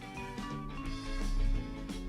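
Background music with bright melodic notes over a bass line that swells about halfway through.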